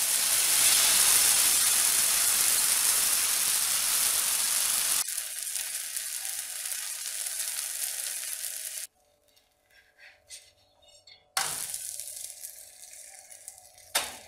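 Oats chilla batter sizzling in hot oil on a non-stick pan. The hiss is loud at first, drops abruptly about five seconds in, cuts out near nine seconds and comes back more faintly about two seconds later. A sharp click near the end as a spatula touches the pan.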